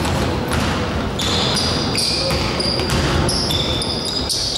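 Basketball play on a hardwood court: sneakers squeaking sharply many times over as players run and cut, with the ball being dribbled.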